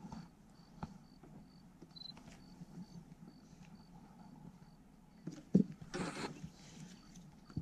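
Handling noise on a body-worn camera: a sharp knock about five and a half seconds in, then a brief rough rubbing as the lens is covered. Under it is a quiet outdoor background with a faint high chirp repeating about twice a second.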